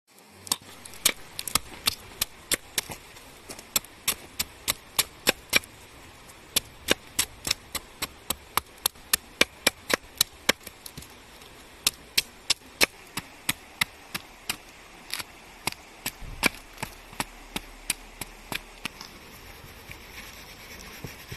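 Nata knife blade chopping into wood: a quick run of sharp strikes, about two or three a second, with two short pauses, stopping a couple of seconds before the end.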